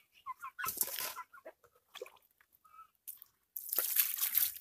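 Water poured from a plastic mug over cut fish pieces in a wicker basket, splashing through them in two bursts, about a second in and again near the end. Faint bird chirps sound in between.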